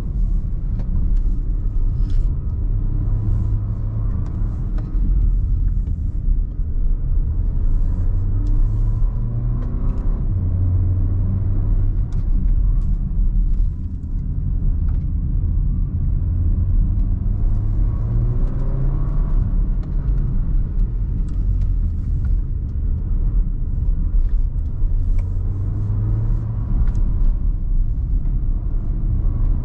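Porsche Macan's 2.0-litre turbocharged four-cylinder engine under way, with steady road and tyre rumble, heard from inside the cabin. The engine note rises and falls as the driver accelerates and eases off through the bends.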